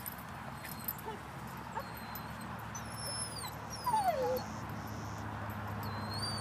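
Small dog whining in a few short, high gliding whines, the loudest a falling whine about four seconds in.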